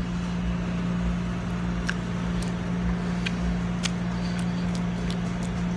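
Chewing on a simmered chicken foot, a handful of sharp little clicks as its small bones are worked in the mouth, over a steady low mechanical hum.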